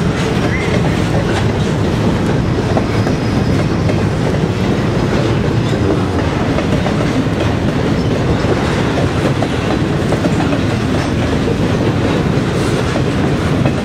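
Canadian National double-stack intermodal freight train's container well cars rolling past close by: a steady, loud rumble with wheels clattering on the rails.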